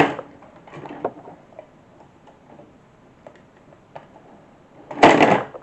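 Light scattered clicks and ticks of pliers working a small nut inside the plastic case of an Atari 410 cassette recorder during reassembly. A short noisy burst comes at the start, and a louder one about five seconds in.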